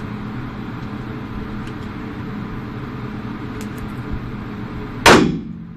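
A single shot from a .40-calibre Glock 22 Gen 4 pistol about five seconds in, sharp and loud with a short echoing tail, over a steady low hum.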